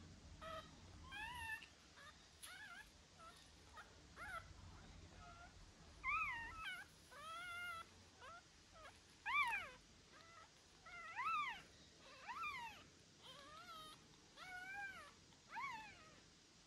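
A pet animal crying: about fifteen short, high-pitched cries, each rising then falling in pitch, at irregular intervals.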